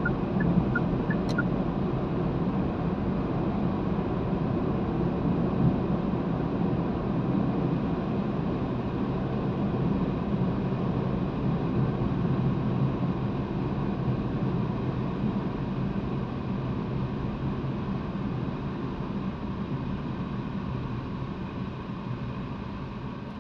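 Car driving along a road, heard from inside the cabin: steady engine and tyre noise that eases off over the last several seconds as the car slows.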